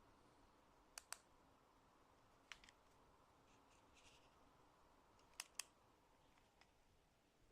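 Faint room tone broken by a few sharp clicks, mostly in close pairs: two about a second in, one after two and a half seconds, and a louder pair after five seconds.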